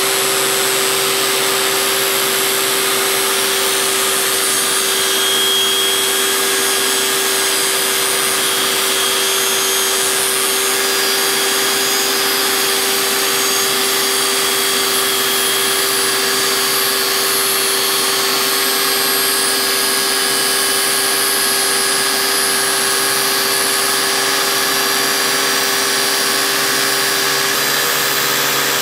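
Table saw running steadily with a 3/8-inch dado stack, the spinning blades being raised slowly up through a luan throat-plate blank to cut their own zero-clearance opening. A constant motor hum over the hiss of the blades.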